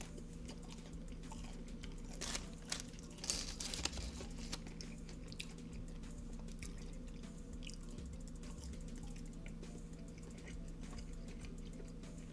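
Close-up eating sounds: chewing on chicken wings and licking fingers, with scattered sharp mouth clicks and smacks that cluster between about two and four and a half seconds in. A steady low hum runs underneath.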